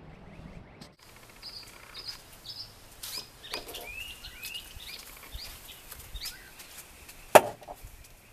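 Birds chirping outdoors, a string of short rising and falling calls, after a second of wind noise on the microphone. A single sharp knock near the end is the loudest sound.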